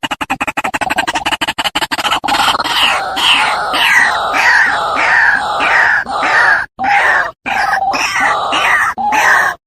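White-breasted waterhen calling: a fast stuttering rattle of pulses for about two seconds, then a run of loud repeated croaking notes, about two a second, broken by a few short pauses near the end.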